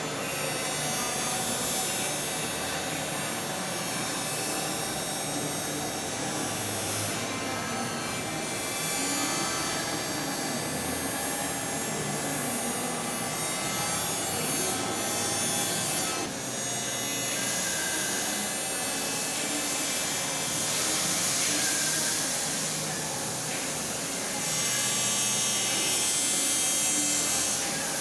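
Prima/Adira P-1640S CNC hydraulic press brake running: a steady mechanical whir and hiss that swells and eases every several seconds as the machine cycles.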